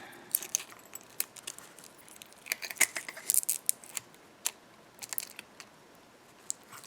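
Adhesive tape being pulled and torn off, heard as short scattered rustles and clicks, busiest a few seconds in.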